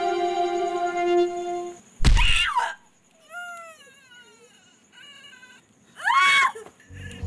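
A few held synthesizer notes of background music, then a woman crying out in pain: a loud cry about two seconds in, faint whimpering cries that fall in pitch, and a second loud cry about six seconds in.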